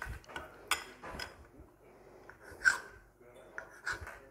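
Dough rolled by hand on a marble board, then cut into pieces with a kitchen knife: a few sharp taps of the blade against the stone, the loudest about two and a half seconds in.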